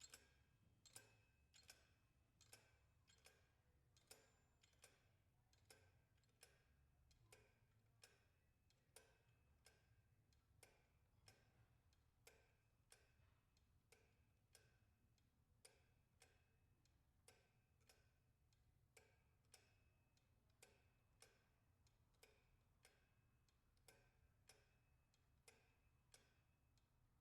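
Faint, regular ticking of a giant mechanical watch movement model running, about two sharp metallic ticks a second with a slight ring, over a steady low hum.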